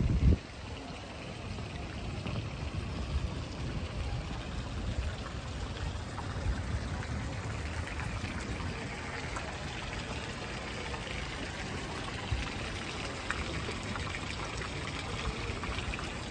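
Water from a stone fountain's jets splashing steadily into its basin, getting louder from about halfway through as it comes nearer. A brief bump at the very start, with a low rumble underneath.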